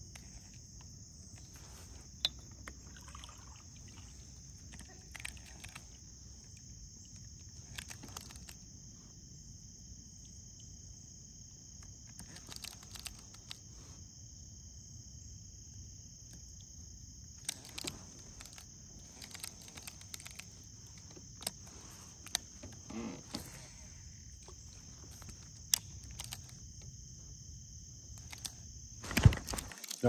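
Insects droning steadily at a high pitch, with a few sharp clicks and light knocks scattered through. About a second before the end comes a loud bump as the camera is handled.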